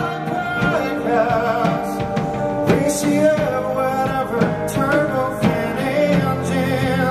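Live rock band playing: a male lead voice sings over electric guitar, bass and a drum kit.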